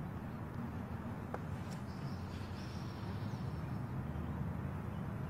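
Steady low background rumble with no clear source, a single faint click a little over a second in, and a faint thin high tone between about two and three and a half seconds.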